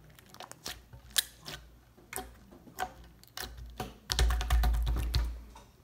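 Elmer's Gue premade slime being squeezed and pressed by hand, giving a run of sharp crackling clicks and pops. The clicks come thicker and louder from about four seconds in, over a low thudding.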